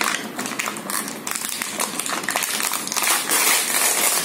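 Clear plastic packaging of a toy gun set crinkling and crackling as it is pulled and torn open by hand, loudest near the end.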